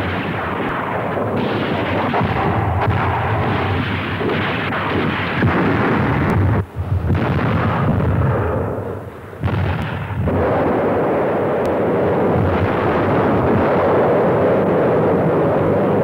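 Artillery fire and shell bursts blending into a continuous din, with brief lulls about seven and nine seconds in.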